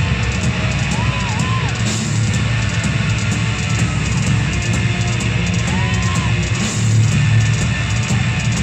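Black metal band playing live: distorted electric guitars, bass and drums in a loud, dense wall of sound.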